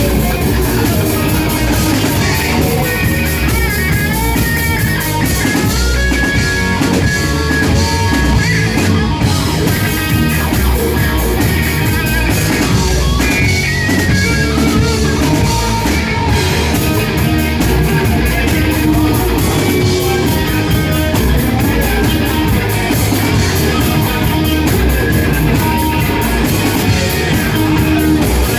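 Rock band playing live, with guitar and drum kit at an even loudness.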